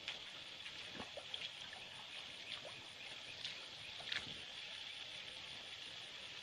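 Rubber boots wading through a shallow, stony stream: a few soft splashes and sloshes, about a second in, around two and a half seconds, and a cluster near four seconds, over a steady high background hiss.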